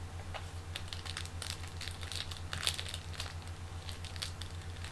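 Trading cards and their pack wrappers being handled: irregular crinkling and rustling of foil and plastic, over a steady low electrical hum.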